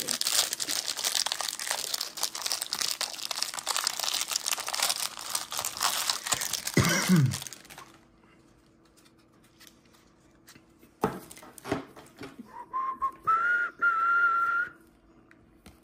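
Plastic wrapping on a pack of Topps baseball cards crinkling and tearing as it is ripped open, ending in a short voice sliding down in pitch. Near the end someone whistles a single held note, rising slightly, for about two seconds.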